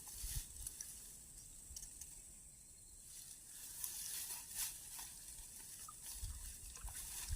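Quiet outdoor ambience: a steady high-pitched hiss, with scattered faint ticks and clicks.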